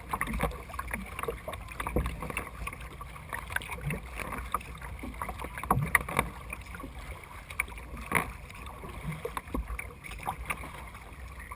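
Kayak paddles dipping and splashing in the water, irregular strokes every second or two, over a low steady rumble.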